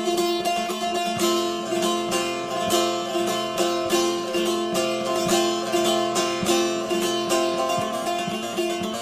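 Background music of plucked string instruments, a lively melody of quickly repeated picked notes over steady held tones.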